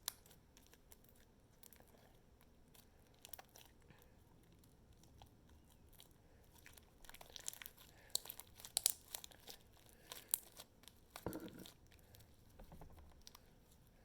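Homemade slime being squished and stretched by hand: faint sticky crackling and little pops, coming in scattered clusters that grow busier over the second half, with a soft handling bump near the end.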